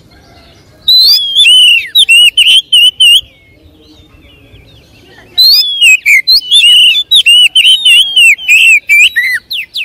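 Male oriental magpie-robin singing: two bursts of rapid, varied whistled notes with quick rising and falling sweeps. The first starts about a second in and lasts about two seconds. The second, longer one starts about halfway and runs almost to the end.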